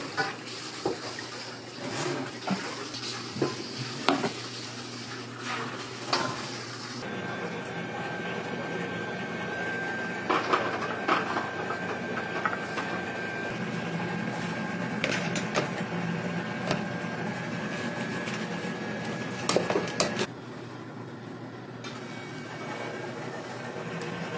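Kitchen utensils clinking, tapping and scraping against a stainless steel bowl and a pan as a thick egg cream is strained through a mesh sieve and scraped out with a silicone spatula. Scattered sharp clicks throughout, with a faint steady whine through the middle stretch.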